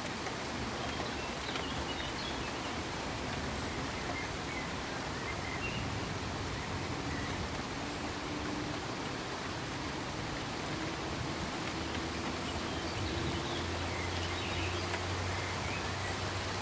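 Ambient sound-effect track of steady, even noise, with a few faint high chirps about two seconds in and again near the end, and a low hum over the last few seconds.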